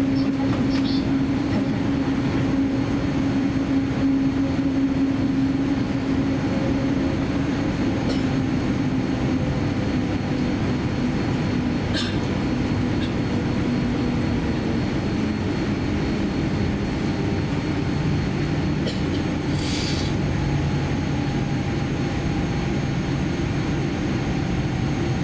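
Steady cabin noise of a Boeing 787-10 taxiing with its engines at low power. A humming tone slowly sinks in pitch and fades about halfway through, and a few faint clicks sound.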